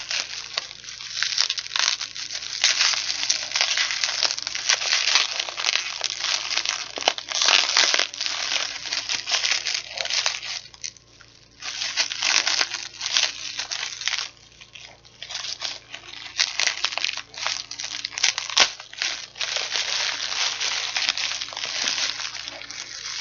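Chocolate bar wrapper being crinkled and torn open by hand, a dense crackling of packaging that pauses briefly twice.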